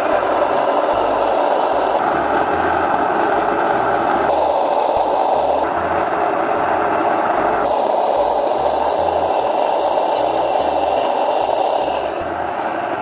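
Electric countertop grain mill running steadily, grinding rye grain into a glass jar; the grinding eases slightly near the end.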